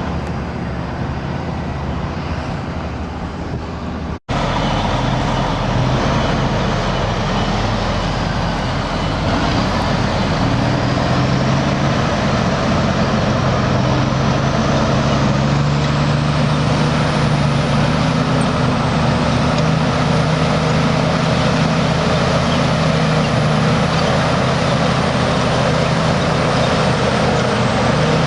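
Heavy diesel earthmoving machinery, an elevating scraper at work, running steadily under load. The sound cuts out abruptly for an instant about four seconds in and comes back louder.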